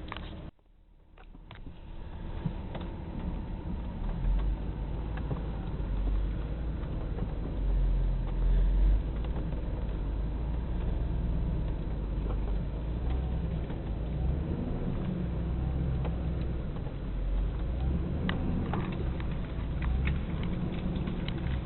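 A vehicle running, with a continuous, uneven low rumble and a faint steady hum. It drops out briefly about half a second in, then carries on.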